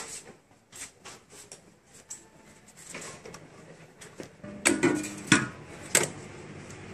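Metal clinks and knocks of tools and small parts being handled, scattered light taps with three louder knocks in the second half.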